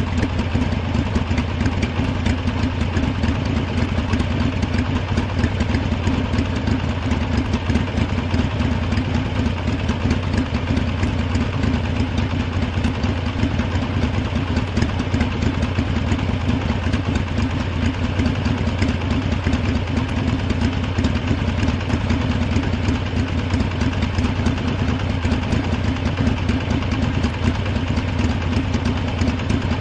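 Harley-Davidson V-twin motorcycle engine idling steadily, with an even, rapid pulse of firing strokes that holds without change.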